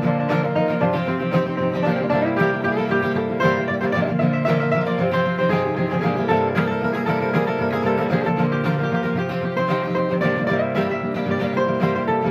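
A live band playing an instrumental break between sung verses of a country song, on plucked string instruments.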